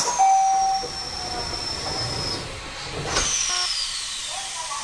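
Compressed air hissing from a Kobe Electric Railway train's pneumatic system, heard inside the car. A sharp hiss with a high, slowly falling whistle comes first, then a second hiss about three seconds in whose whistle drops more steeply. A short steady beep sounds just after the first hiss begins.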